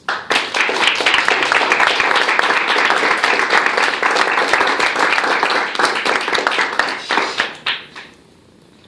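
A small group applauding, many hands clapping quickly and unevenly, thinning to a few last claps and stopping near the end.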